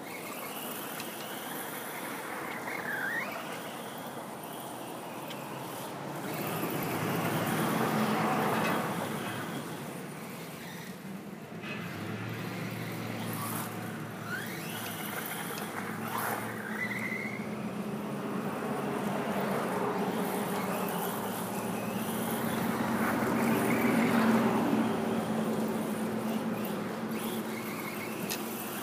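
Traxxas Slash 4x4 RC short-course truck running laps, its Castle Creations Mamba Max Pro brushless motor whining up and down in pitch with the throttle over drivetrain and tyre noise. It swells twice as the truck comes close, about a third of the way in and again past the three-quarter mark.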